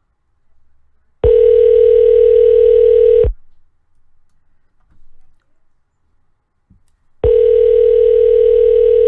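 Telephone ringback tone heard on the caller's end of an outgoing call: two steady rings, each about two seconds long, six seconds apart from start to start. The line is ringing and has not yet been answered.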